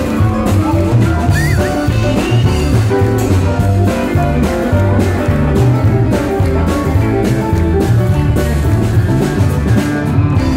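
Live band playing an instrumental passage: electric guitar over drums and a moving bass line.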